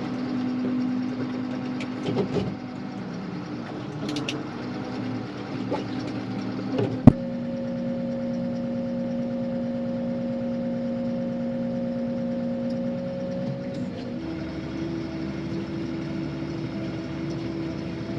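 Tractor engine running steadily, its hum stepping to a different pitch twice, with a single sharp click about seven seconds in.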